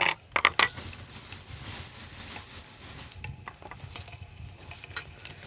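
Tableware and food being handled at a meal: a few sharp clinks and knocks of dishes in the first second, then a couple of seconds of soft rustling, with small ticks after.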